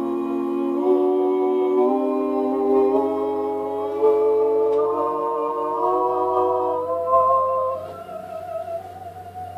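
Elevator's sound playing choir-like humming chords that step upward in pitch about once a second, thinning near the end to a single wavering tone that keeps slowly rising.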